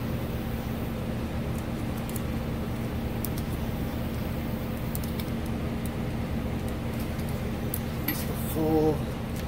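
Steady low motor hum, with a few faint light metallic clinks as a copper-alloy brake line is bent around a socket clamped in a bench vise.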